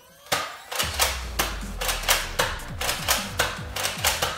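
A Nerf blaster firing foam darts in rapid succession, about three sharp clicking shots a second, over a steady low hum.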